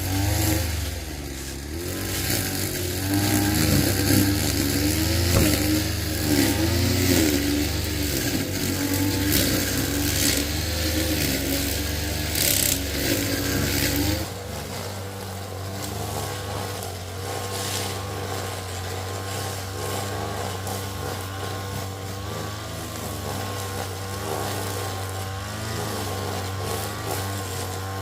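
An engine running with a steady low hum, its pitch wavering for about the first half, then settling to a quieter, steadier note about halfway through.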